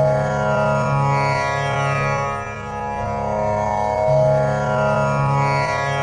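Tanpura drone tuned to C#, its strings plucked in a repeating cycle of about four seconds. The low tonic swells and fades over a steady bed of rich overtones.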